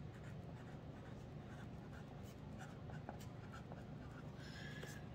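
Faint scratching of a pen writing by hand in short strokes, over a low steady room hum.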